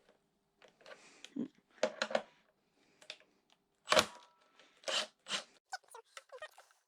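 Scattered clicks and knocks of tools being handled against metal, with one sharp knock about four seconds in and a quick run of small clicks near the end.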